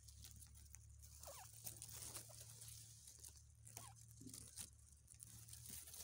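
Faint rustling of grass or rice stalks, with a couple of soft, short bird calls about a second in and again near the middle.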